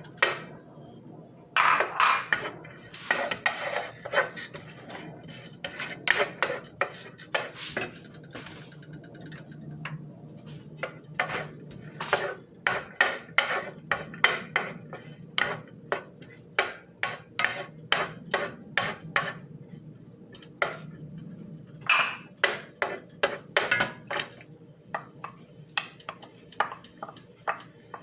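Kitchen utensils clinking and knocking against pots and dishes in irregular runs of sharp taps, several a second, with short pauses between runs.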